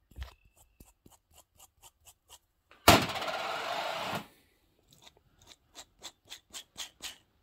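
A worn, dry 6203 C3 chainsaw crankshaft ball bearing turned by hand, clicking about five times a second as the balls pass rough spots in the races. About three seconds in there is a louder rough rush of noise lasting just over a second. The clicking is the sign of a worn-out bearing that has no play yet but is clicky and crunchy.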